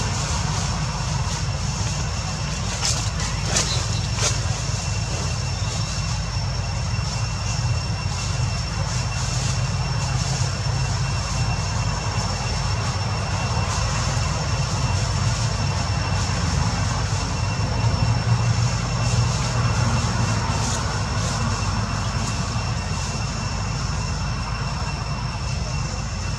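Steady outdoor background noise: a constant low rumble with an even hiss, and a thin steady high whine running above it. A few faint clicks come about three to four seconds in.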